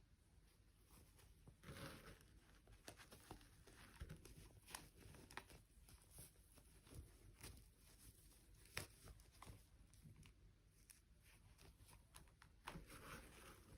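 Near silence with faint handling noises: scattered light clicks and short rustles, as of hands working with toys and their packaging.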